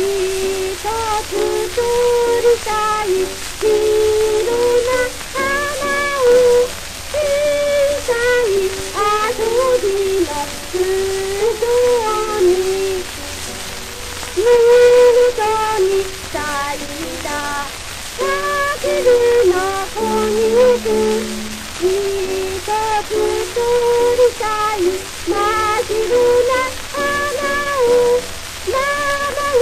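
A female voice singing a Japanese school song (shōka) in phrases that rise and fall, played from an early acoustic 78 rpm disc with steady surface hiss and crackle.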